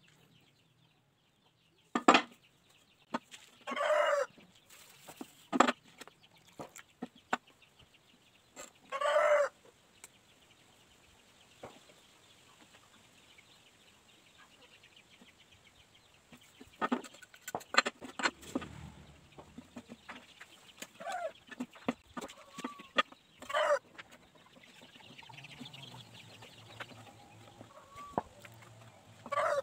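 Short animal calls, a few half-second cries, amid sharp knocks and scrapes of hand tools and tins on a workbench during plaster casting.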